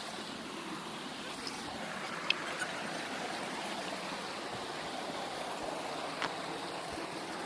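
Steady rushing of a waterfall's falling and flowing water, with a few faint sharp clicks.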